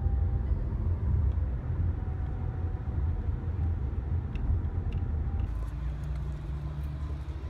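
Road noise inside a moving car: a steady low rumble of engine and tyres. About five and a half seconds in it cuts to a quieter outdoor sound with a steady low hum.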